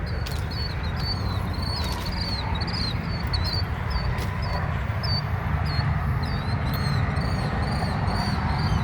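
A small bird chirping over and over, short high notes about two or three a second, over a steady low rumble.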